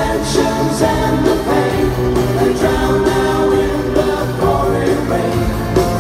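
Live rock band with orchestral backing playing a song in a large arena, heard from the stands: held chords with sustained vocal harmonies over the band.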